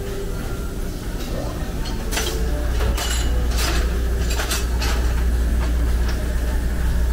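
Metal clinking and tapping, five or six sharp strikes spread over a few seconds, over a steady low hum that grows louder about two seconds in.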